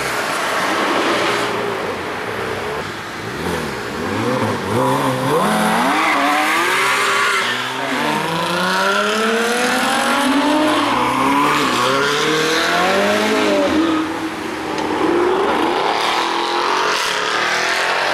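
Performance cars accelerating hard away one after another, engines revving up in pitch and dropping back at each upshift.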